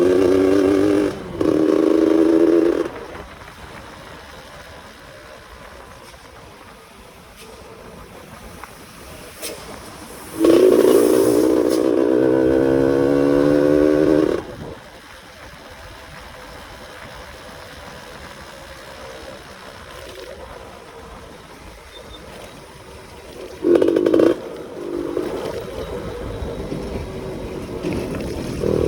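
Yamaha F1ZR two-stroke single-cylinder motorcycle engine, tuned to a rough 'ngorok' (snoring) note, revving hard in bursts. There is a loud pull at the start with a brief break about a second in, a longer pull rising in pitch about ten seconds in, and a short blip near the end. In between, the engine runs much quieter.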